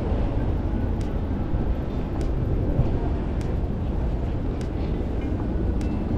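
Steady low rumble of city street noise, even in level throughout, with a few faint ticks.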